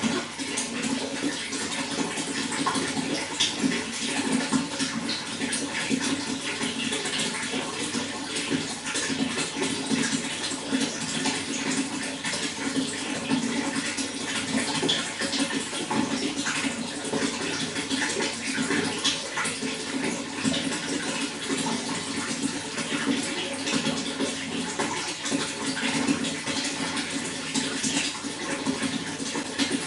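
Running water flowing steadily: a continuous rush dotted with many small splashes.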